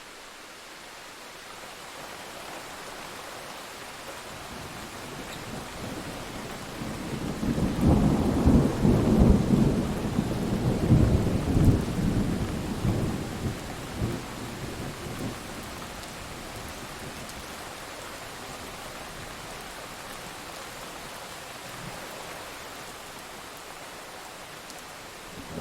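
Thunderstorm: steady rain with a long rolling thunder rumble that swells about a quarter of the way in, stays loud for several seconds, then dies away, leaving the rain.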